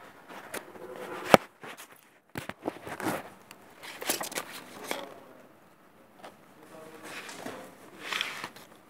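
Scattered clicks and rustling handling noises, with one sharp click about a second and a half in.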